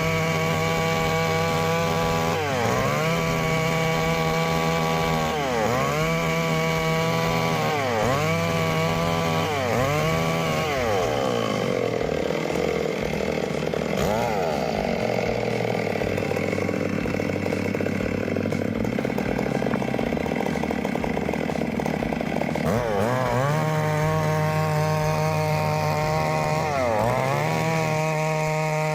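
Chainsaw running at high revs as it rips through logs to cut planks, its engine pitch dipping and recovering every few seconds. From about a third of the way in until about two-thirds, the pitch drops lower and the sound turns noisier under the load of the cut, then it climbs back to a high, steady note.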